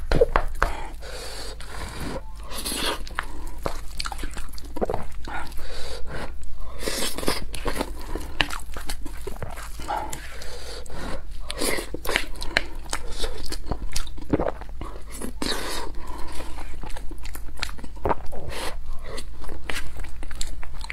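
Close-miked eating sounds: a wooden spoon mixing and scooping curry and rice in a bowl, and chewing with many short clicks and smacks.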